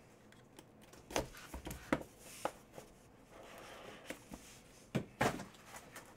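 Hands handling a cardboard trading-card box and its foil-lined packaging: scattered knocks and taps, the loudest two near the end, with a soft rustle and scraping in the middle.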